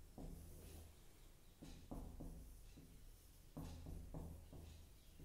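Marker pen writing on a whiteboard: faint taps as the tip meets the board and short scratchy strokes, several times, over a steady low hum.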